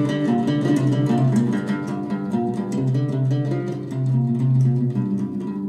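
Song music led by plucked and strummed guitar, with no singing in this stretch.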